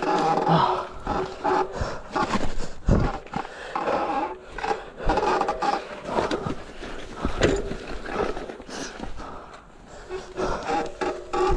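Electric mountain bike clattering down a rough trail: tyres rolling and scraping over dirt and roots, with frequent sharp knocks and rattles from the bike over bumps. A short pitched hum comes in near the start and again near the end.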